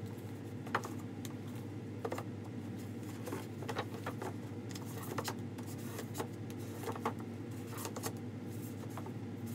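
Books being handled and set onto a bookshelf: irregular light knocks and scuffs, about a dozen, as hardbacks are pulled out, slid and stood back in place, over a steady low hum.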